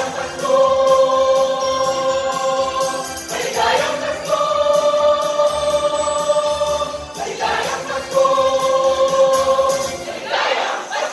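A choir singing a carol in long held notes, with a short break between phrases every three to four seconds.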